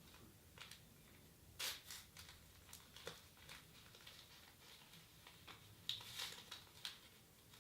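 Near silence: quiet room tone with a scattering of faint clicks and light rustles, a little louder at about two seconds in and again near six seconds.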